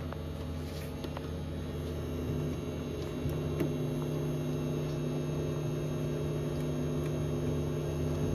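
Steady electrical hum from a Stranger PBT701 power amplifier, a low drone of several fixed pitches with a couple of faint clicks. It is the amplifier's fault: hum only, with no response to the input signal.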